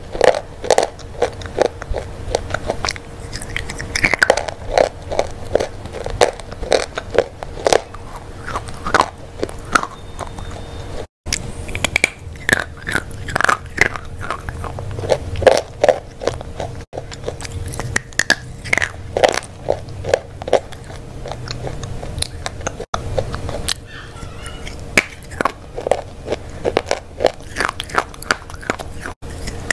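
Close-miked bites and chewing of a hard, crunchy milky bar: sharp crunches about once or twice a second, with chewing between them. A faint steady hum runs underneath.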